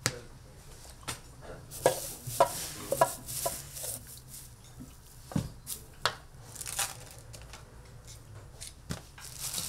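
Kitchen knife chopping on a cutting board in about ten uneven strokes, with light rustling between them.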